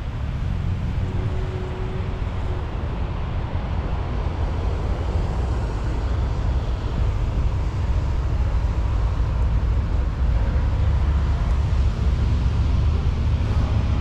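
Wind buffeting an action camera's microphone: a heavy, uneven low rumble over a steady background rush, growing a little louder in the second half.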